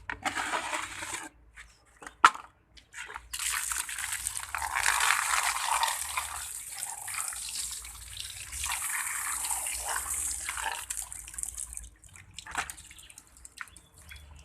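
Water running and splashing: a short splash at the start, a sharp knock about two seconds in, then a steady run of water for about eight seconds that stops near the end.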